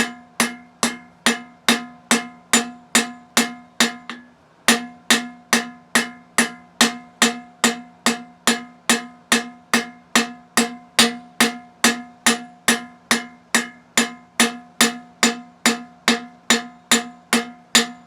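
Blacksmith's cross-pein hammer with a flattened pein striking hot steel on an anvil in a steady rhythm of about two and a half blows a second, each blow ringing, with a brief pause about four seconds in. The blows are spreading the end of the bar wider without lengthening it.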